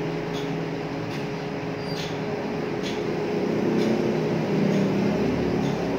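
A steady low mechanical hum with several faint clicks of computer keys being typed.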